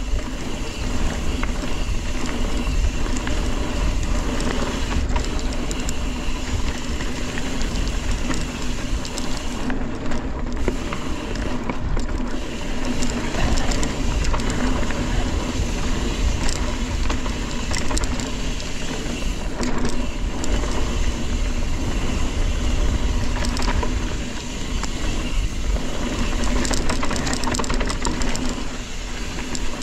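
Mountain bike riding down a dirt trail: wind noise on the microphone with tyre roar and the rattle and knocks of the bike over rough ground.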